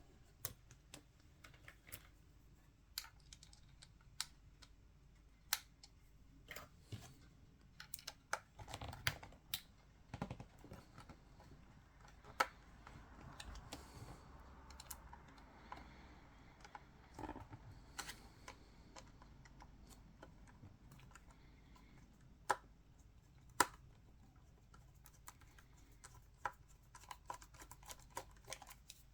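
Irregular small clicks and taps of hand tools and small metal and plastic parts being handled on a Canon EOS 5D DSLR body during a teardown, with a few sharper clicks standing out and a soft rustle in the middle.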